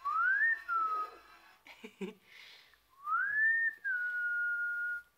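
A person whistling twice, each a clear single tone that rises and then drops to a held note; the second whistle is longer, about two seconds.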